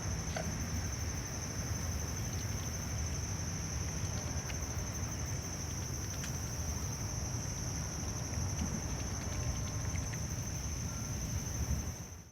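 Insects, likely crickets, trilling in one steady, unbroken high note over a constant low rumble, with a few faint ticks. It all cuts off abruptly at the end.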